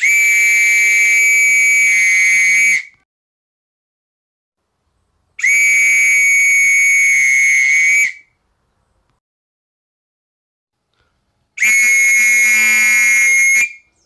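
A whistle blown in three long, steady, high-pitched blasts of nearly three seconds each, a few seconds apart.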